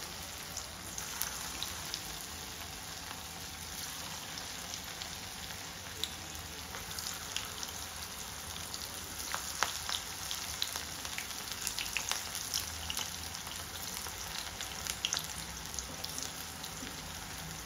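Masala-coated bitter gourd slices deep-frying in hot oil: a steady sizzle with scattered sharp pops.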